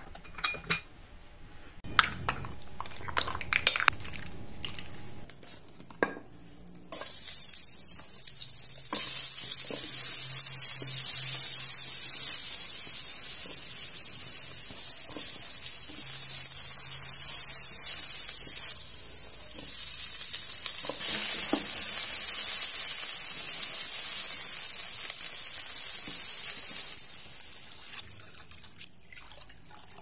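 Dishes and utensils clinking in a sink, then a kitchen tap running in a strong stream, turned on and off twice, with the odd clink of dishes under the water.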